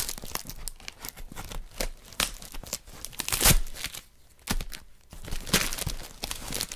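Scissors cutting through packing tape and cardboard on a parcel, in quick irregular snips and tears, with packaging crinkling. There is a brief lull about four seconds in.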